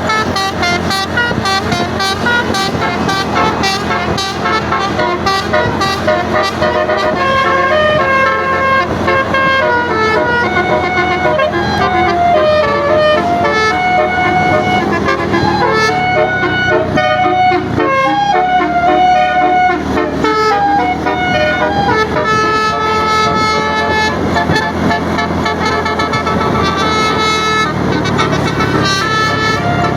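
Basuri telolet multi-tone bus air horn playing a continuous melody of quick stepped notes, over a low steady rumble.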